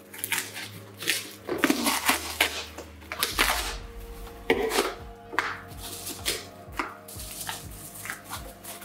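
Scissors cutting through a cardboard parcel box: irregular crunching snips, some long and some short, with the cardboard rustling as the box is worked open.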